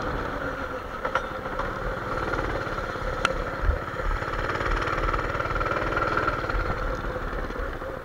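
Motorized trike running under throttle over rough grass, its motor giving a steady tone over a rumble from the ground, with a few sharp clicks and rattles from the bumpy ride.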